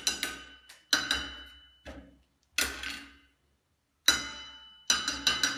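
Two wooden sticks striking a plate in a rhythm, each hit ringing briefly: single hits about a second apart, a pause, then a quick run of taps near the end.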